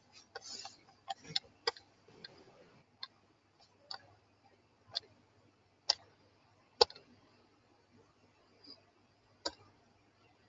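Scattered sharp clicks and taps, about ten at irregular intervals, the loudest a little before two-thirds of the way in, over a faint low hum from an open line.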